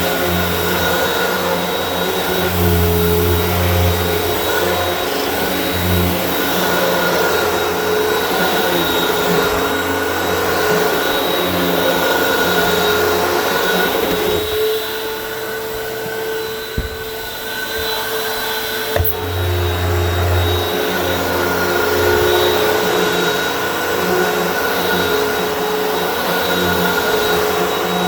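Hoover WindTunnel upright vacuum cleaner running, with a steady high motor whine and a low rumble from the head working the floor. About halfway through, the low rumble drops out for a few seconds, with two sharp clicks, then comes back.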